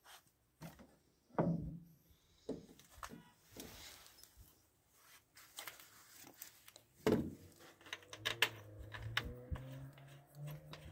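Scattered light clicks and rubbing from wires being handled at the starter motor of a T-40 tractor. The clicks come thicker in the second half, over a faint steady low hum.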